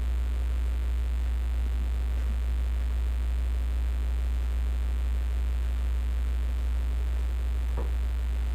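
Steady low electrical hum with a faint click near the end.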